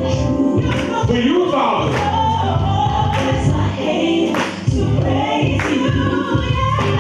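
Gospel music with a choir singing over a heavy bass beat.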